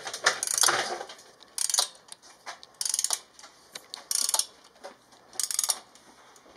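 Socket ratchet wrench clicking in five short bursts, about one every second and a bit, as it turns a header flange nut on a motorcycle's stainless steel exhaust downpipes.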